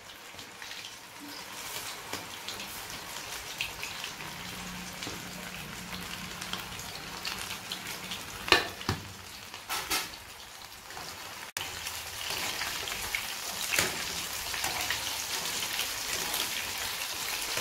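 Masala- and flour-coated prawns deep-frying in hot oil in an aluminium kadai: a steady sizzling and bubbling that grows louder in the second half. A few sharp knocks come about halfway through.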